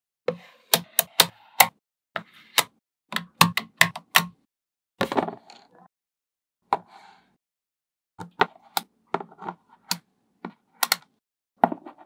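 Small magnetic balls clicking and snapping together as blocks of them are pressed into place on a ball-built model, in irregular clusters of sharp clicks with a short pause midway.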